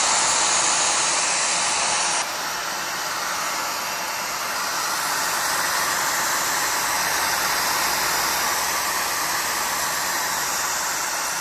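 Redroad V17 cordless vacuum cleaner running with a steady, even whooshing hiss. The tone shifts and the level drops a little about two seconds in.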